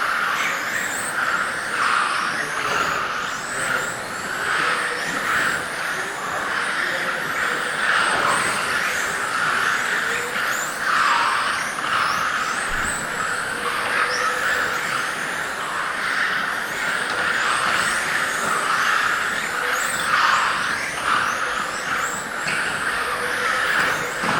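Several radio-controlled electric GT cars with 17.5-turn brushless motors racing: many high motor whines rising and falling as the cars accelerate and brake, over a steady hiss from the cars on the track.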